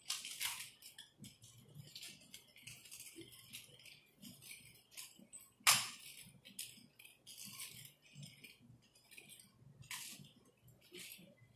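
Nunchaku being spun and swung fast: a run of quick swishes and the jingling rattle of the chain between the sticks, with one sharp clack about halfway through.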